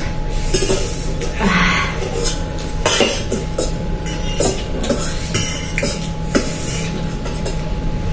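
Metal forks clinking and scraping against steel plates as noodles are eaten, in a scatter of short sharp clicks. A short breathy burst comes about a second and a half in, over a steady faint background hum.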